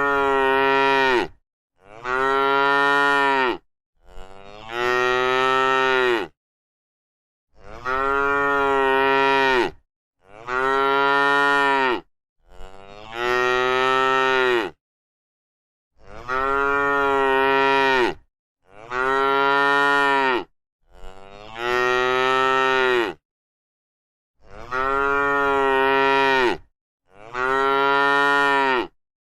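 A cow mooing over and over: about eleven drawn-out moos of roughly two seconds each, with dead silence between them.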